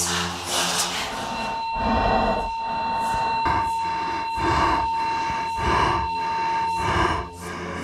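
A person running over boggy ground: rhythmic panting breaths and footfalls, about two a second, with a steady high ringing tone over them from about a second and a half in until near the end.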